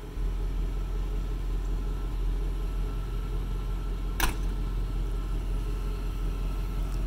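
A 1990 Chevrolet C1500 pickup's engine idling steadily, with one sharp click about four seconds in.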